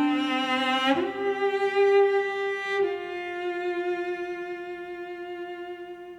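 Slow instrumental lullaby music: a few long held notes, the last one dying away at the end.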